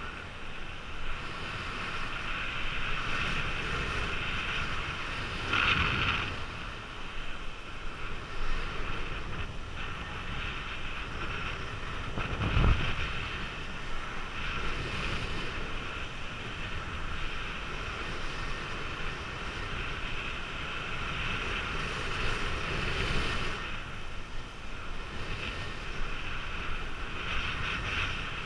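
Steady rush of airflow over the microphone during a fast speedflying flight, with the loudness swelling and easing as the wing turns, and one low buffeting thump about twelve seconds in.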